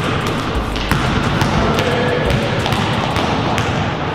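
Background music with a beat, over a basketball being dribbled on a hardwood gym floor.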